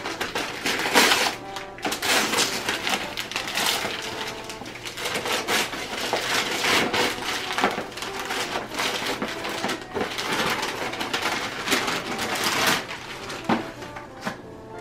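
Gift wrapping paper being torn and crumpled off a box, a long run of ripping and crinkling that dies down near the end.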